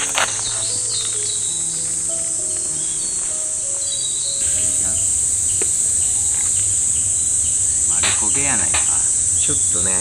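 A steady, high-pitched drone of summer insects. Soft background music of held notes plays under it for the first few seconds, then stops.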